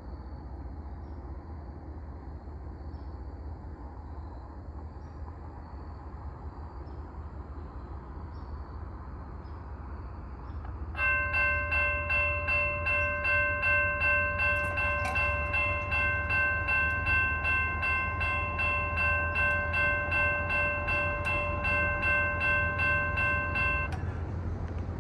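Electronic crossing bell (NEG E-bell) on the grade-crossing signals starts about eleven seconds in, ringing at about two strokes a second, and cuts off abruptly shortly before the end. It is the crossing's warning activating. A steady low rumble runs underneath.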